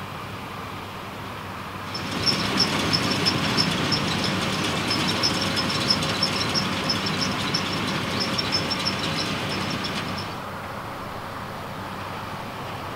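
Case Maxxum 140 tractor pulling a Feraboli Extreme round baler through hay, running steadily. From about two seconds to ten seconds in, the baler is close and the sound is much louder, full of fast, high-pitched metallic clicking and rattling from the baler's working mechanism.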